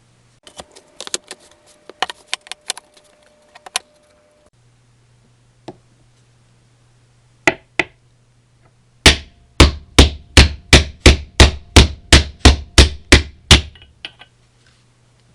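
Scattered light clicks and taps of tools for the first few seconds, then a regular run of about a dozen hammer blows, roughly three a second, that stop about a second before the end.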